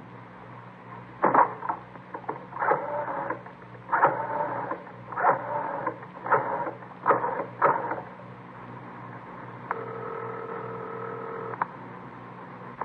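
Radio-drama sound effect of a rotary telephone being dialed: a string of short dial-return sounds, one digit after another. Then a steady ringing tone in the earpiece for about two seconds, cut off by a click.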